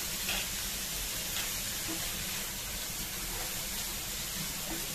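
Onion, tomato and ginger-garlic paste sizzling steadily in hot oil in a frying pan.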